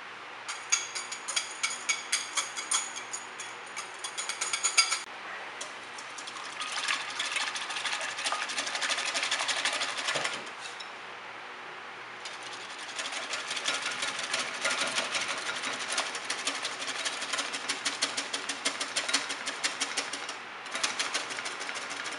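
A balloon whisk beating whipping cream by hand in a bowl chilled over ice water: fast rhythmic clicking and scraping of the wires against the bowl, pausing briefly about halfway through and again near the end.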